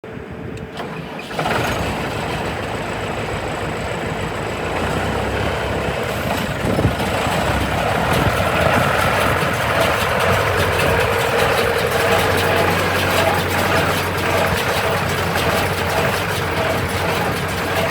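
An engine starts about a second in and then runs steadily.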